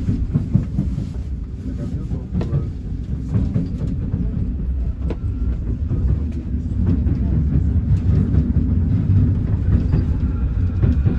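Paris Métro Line 2 train running on its elevated viaduct, heard from inside the carriage: a steady low rumble with occasional sharp wheel clicks over the rail joints. In the second half the rumble grows louder as another train passes close by in the other direction.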